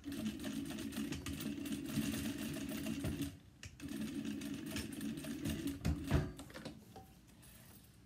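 Sewing machine stitching across the folded end of a fabric strap to secure it: two runs of steady stitching with a short pause between them, and a sharp knock near the end of the second run before the machine stops.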